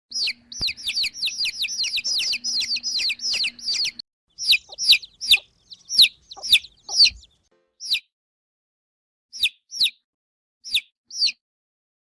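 Baby chickens peeping: a dense run of rapid, overlapping peeps, each falling in pitch, from several chicks. After about four seconds it gives way to slower single peeps, about two a second, which thin out to a few scattered ones near the end.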